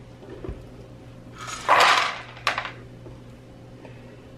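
Plastic chute lid of a Mueller hot-air popcorn popper being gripped and lifted: a short scraping rustle about one and a half seconds in, then a sharp click.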